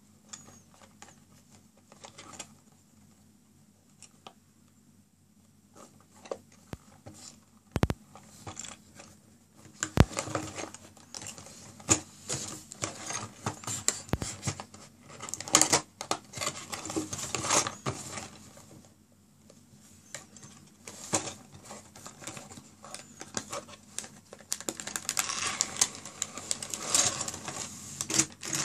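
Cardboard puzzle box being handled and opened by hand: light taps and scrapes, two sharp knocks about eight and ten seconds in, then stretches of crinkly rustling and clicking as the plastic bag of crystal puzzle pieces is taken out and handled.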